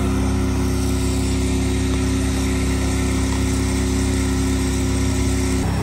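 Fire-rescue truck's engine running steadily with a constant drone while its pump feeds a hose line.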